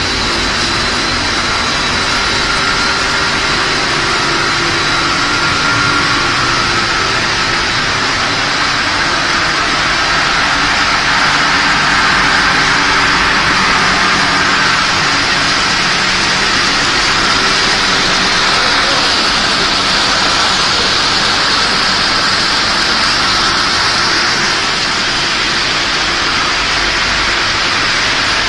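Puffed-snack production line running: a steady, even machinery hiss from the extruder line's motors, conveyors and air handling, with faint constant hums underneath.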